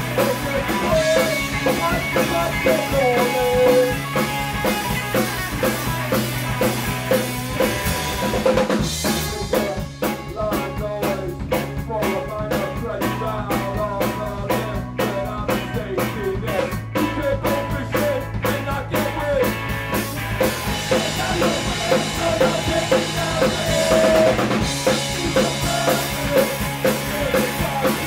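Rock band playing live in a small room: drum kit, electric guitar and bass. For about ten seconds in the middle the sound thins to a sparser, regular rhythm of drum hits before the full band comes back in.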